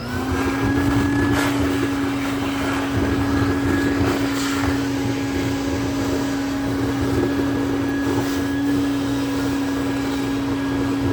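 Build-A-Bear stuffing machine's blower running with a steady hum, switched on at the start.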